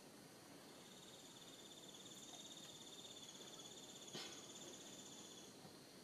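Faint insect trill in the forest: a high, steady, finely pulsing buzz that starts about a second in and stops shortly before the end, with one sharp click about four seconds in.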